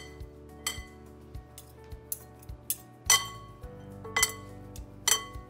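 A metal utensil clinking against a glass mixing bowl as broccoli florets are tossed, with about seven sharp ringing clinks, the loudest about three seconds in. Background music with a steady beat plays underneath.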